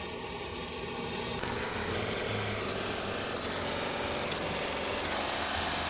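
Handheld propane torch burning with a steady hiss. Its flame is on rusted steel fender-flare brackets, heating them to break the rust's hold.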